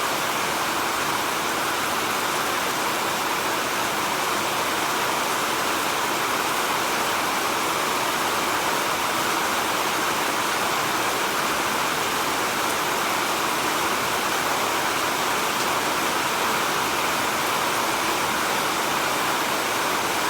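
Steady heavy rain falling in a rainforest: a continuous, even hiss with no separate drops or breaks.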